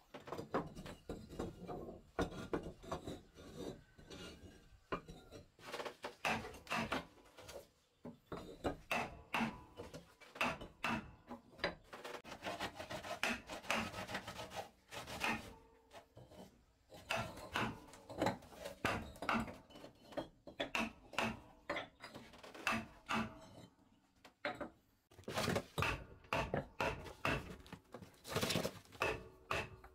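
Irregular knocks, clacks and scrapes of hollow clay bricks being set down and shifted on a wooden floor, mixed with a chisel being struck into a wooden board.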